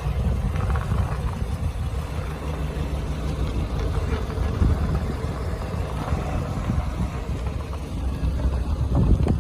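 Renault Kangoo running with a steady low rumble, the sound of the abnormal noise its owner is checking.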